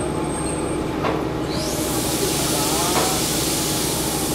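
Metre-gauge passenger train running, heard from inside the carriage: a steady low rumble with a knock from the wheels about a second in and again near three seconds. About a second and a half in, a loud hiss sets in and keeps going.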